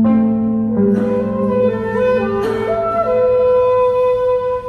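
Shakuhachi playing a slow melody that settles on one long held note, over a few low plucked notes of a seventeen-string bass koto ringing on.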